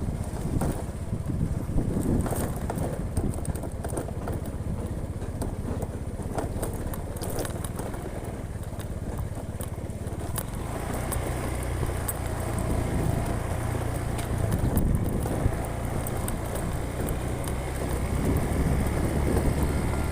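A vehicle's engine running on the move along a rough road, with a steady low hum under many quick rattling knocks and clicks; the hum grows steadier and a little louder about halfway through.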